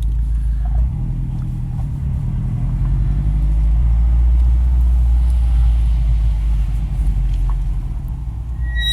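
A 2016 Subaru STI rolling with a steady low rumble from road and engine. Near the end its Hawk HP Plus brake pads start a high-pitched squeal under light braking on warm rotors, a squeak the owner regards as a pad fault.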